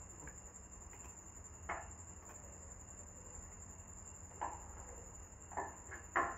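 A few faint computer mouse clicks, a second or more apart, over a steady high-pitched whine and a low hum.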